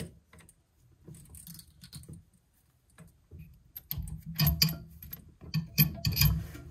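Braided stainless-steel water supply line and chrome fittings being handled and guided down to a toilet's shutoff valve: light metallic clicks and taps, faint at first, then a quick run of sharper clicks and knocks from about four seconds in.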